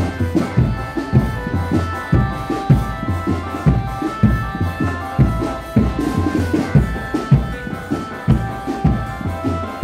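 Drum band music: bass and snare drums beating a steady rhythm of about two strokes a second under held melodic notes.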